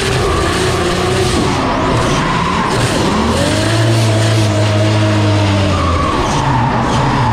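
Drift car engine at high revs with the rear tyres spinning and skidding sideways. The engine note climbs about three seconds in, holds steady, then falls away around six seconds.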